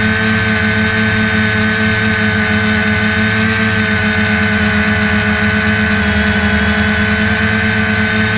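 Multirotor drone's motors and propellers running steadily: a high, even whine over a lower hum that pulses slightly.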